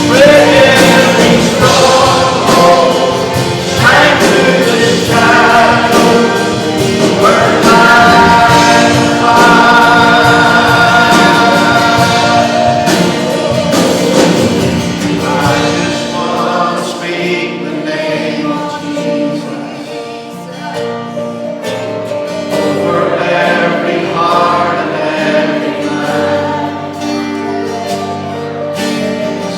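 Congregation and worship band singing a Christian worship song with instrumental accompaniment.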